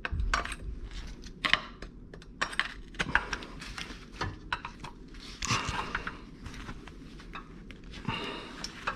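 Irregular metal clinks and scrapes of a pry bar working at a Ford Edge's passenger-side CV axle to pop its inner joint out of the transmission. Longer scraping comes a little past halfway and again near the end.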